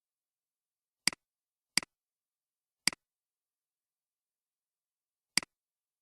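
Four clicks of a computer mouse button, each a sharp press followed at once by a softer release: three in quick succession about a second in, then one more near the end, with dead silence between.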